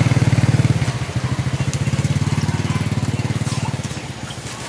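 Motorcycle engine running close by with a rapid low putter, fading away toward the end.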